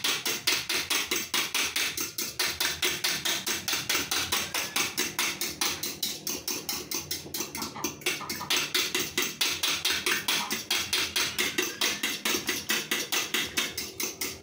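Eggs being beaten by hand in a bowl, the utensil clicking rapidly and evenly against the bowl's side, about five strokes a second.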